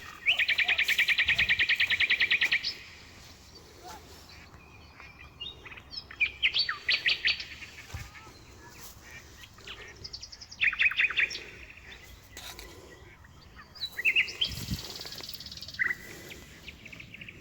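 A small songbird singing, four bursts of rapid trilling; the first, right at the start, lasts about two seconds.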